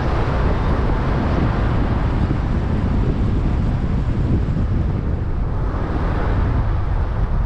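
Strong wind buffeting the microphone: a loud, rumbling gusty rush.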